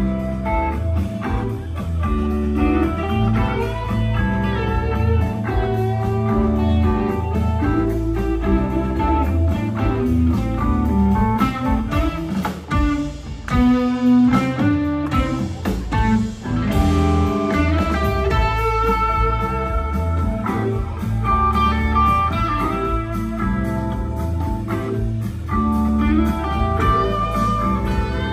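Live rock band playing an instrumental passage, with electric guitars out front over bass and drums.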